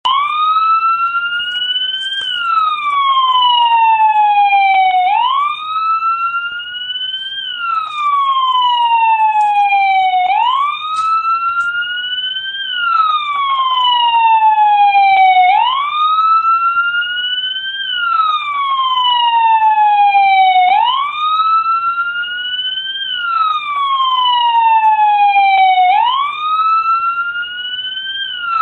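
American police car siren sounding a slow wail. Each cycle climbs in pitch for about two seconds, then falls for about three, and repeats about every five seconds.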